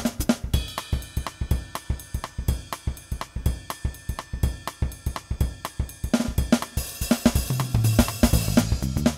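Background music with a steady drum-kit beat: kick, snare and hi-hat over a bass line and held chords.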